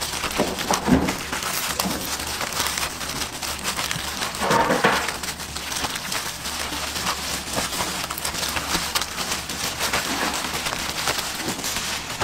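Thin plastic gloves and a plastic sheet crinkling and rustling as hands press and work a food paste, a dense crackle of small clicks, louder for a moment about four and a half seconds in.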